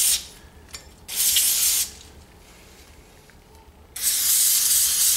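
Aerosol can of brake parts cleaner sprayed through its straw in short bursts: one cutting off at the very start, a brief one about a second in, and a longer one near the end.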